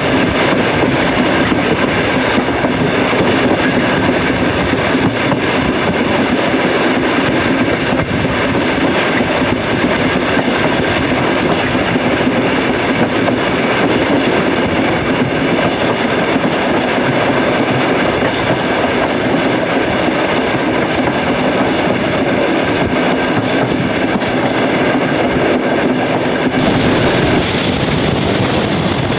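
Steady rumble and rattle of a passenger train running at speed, heard from a coach window: wheels on the rails with clickety-clack from the rail joints over a steady hum.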